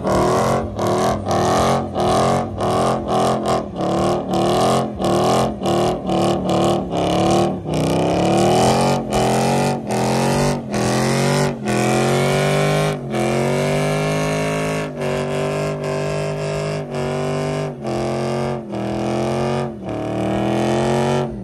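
Dodge Charger doing a burnout, its engine held high in the revs and spinning the rear tyres. The revs stutter rapidly in the first half, then climb in longer rising sweeps, and the sound cuts off sharply at the end.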